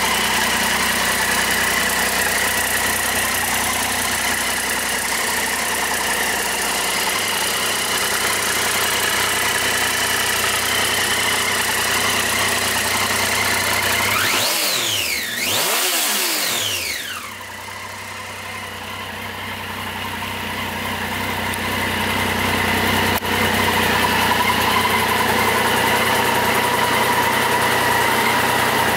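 2011 Triumph Street Triple 675's inline three-cylinder engine idling steadily. About halfway through it is revved twice in quick succession, the pitch rising and falling back each time.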